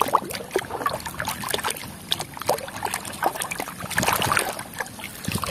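Muddy, soapy water sloshing and splashing in a plastic basin as a hand scrubs a toy with a brush, in irregular short splashes.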